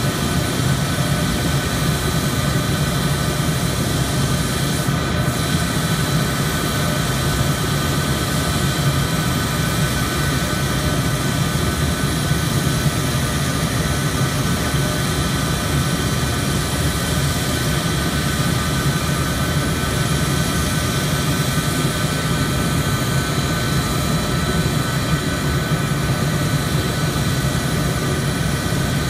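Jet turbine noise running steadily, several high steady whining tones over a strong low rumble, as an F-4E Phantom's J79 turbojets are started on the ramp with a ground air-start cart hooked up.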